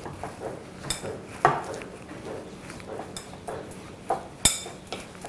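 A spatula working thick mashed chana dal and jaggery in a glass bowl: soft scraping and squelching with several sharp taps of the spatula against the glass, some leaving a brief ringing.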